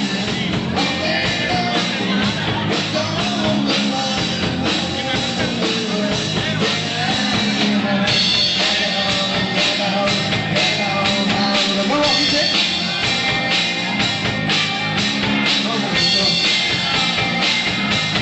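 A rock band playing live, with drum kit, guitars and singing.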